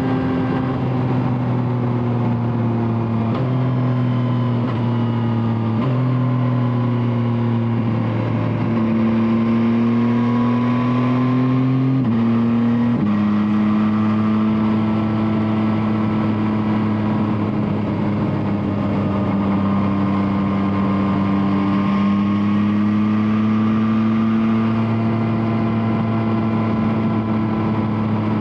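Yamaha Tracer 9's 890 cc inline-three engine running through an Akrapovic exhaust while riding. Its pitch steps up and down several times in the first thirteen seconds as gears change, then holds fairly steady with gentle rises and falls.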